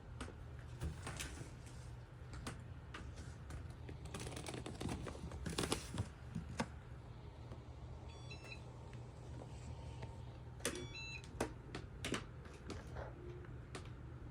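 Irregular clicks and taps of plastic fidget toys being handled, with a few sharper clicks in the middle and twice a brief run of high chirping tones.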